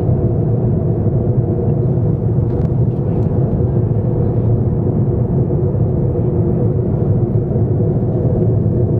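Steady cabin noise of a jet airliner in flight, heard from inside the cabin: a constant low rumble of engines and airflow with a faint steady hum.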